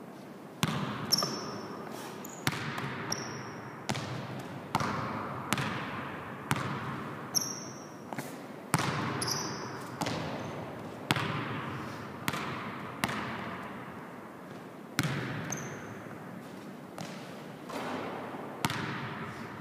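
A basketball bouncing on a hardwood gym floor, about one sharp bounce a second, each echoing in the large hall. Short high sneaker squeaks come in now and then.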